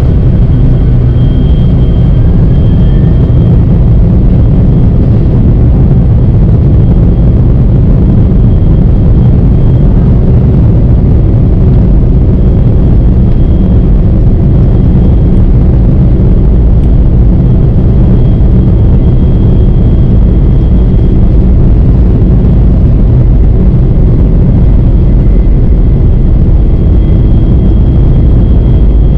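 Boeing 747-400 heard from inside the cabin with its engines at high power: a loud, steady low rumble, as on the takeoff roll and climb.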